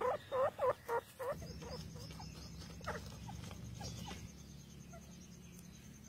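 Grey francolin calling: a quick run of short rising-and-falling calls, about three a second, loud for the first second, then thinning into softer, sparser calls.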